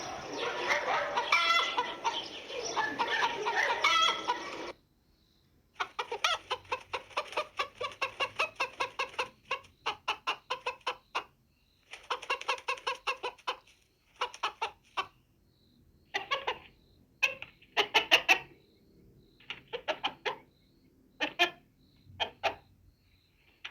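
Hens clucking and squawking: a dense, loud run of overlapping squawks for the first four to five seconds, then runs of quick clucks about four a second, then single calls spaced further apart near the end.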